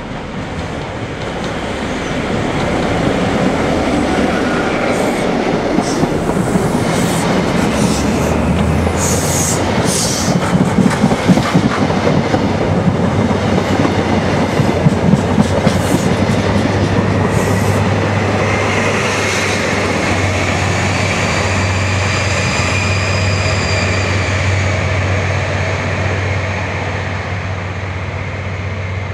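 A Grand Central HST, diesel Class 43 power cars with Mark 3 coaches, passing slowly through a station platform: a continuous rolling rumble with wheels clacking over rail joints as the coaches go by. From about two-thirds of the way in, a steady engine drone with a high whine that rises and falls comes in as the rear power car passes.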